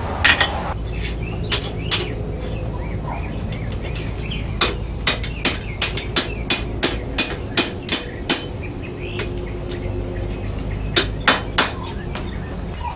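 Hand hammer striking steel on an anvil while forging a trowel: two blows, then a steady run of about a dozen blows at roughly three a second, then three more near the end, each a sharp ringing clang. A steady low rumble runs underneath.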